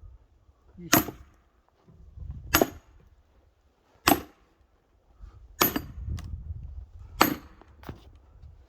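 Axe splitting pine firewood: five sharp chopping strikes, evenly spaced about a second and a half apart.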